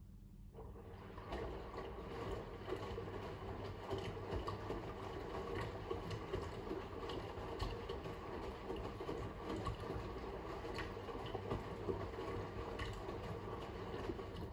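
Fisher & Paykel WM1480P front-loading washing machine filling for the rinse: a steady rush of water into the drum with small ticks. It starts about half a second in and stops suddenly near the end.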